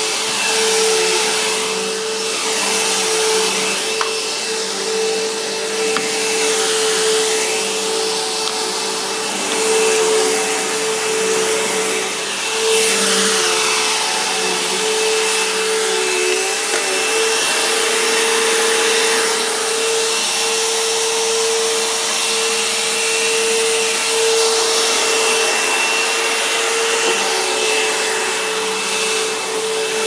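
Bissell CleanView Helix bagless upright vacuum cleaner running on carpet: a steady motor whine over rushing air, swelling and easing every few seconds as it is pushed back and forth.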